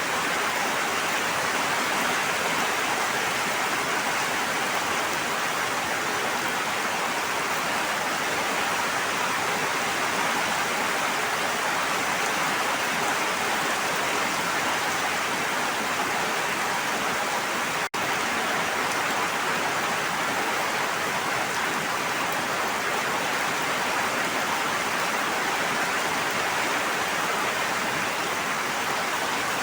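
Steady, even rushing of water, with a momentary dropout a little past halfway.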